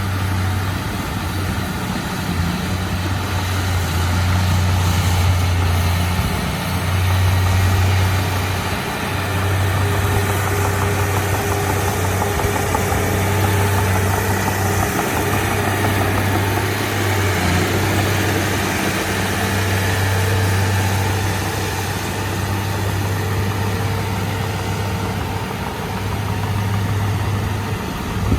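Heavy diesel engine of earthmoving machinery running steadily, a deep hum that dips briefly several times.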